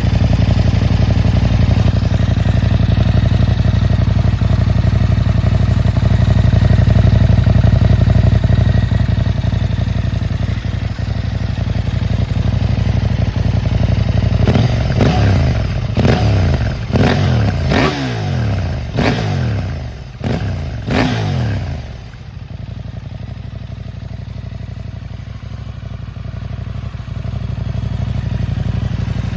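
KTM 890 SMT's parallel-twin engine with a Remus slip-on silencer idling steadily, then revved in a quick series of throttle blips, each rising and falling back. After that it settles to a quieter idle.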